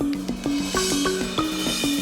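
A drum kit with brass Avus Genext cymbals played along to a backing track. Regular kick and snare strikes and a cymbal wash ring over a short-noted, stepping melodic line.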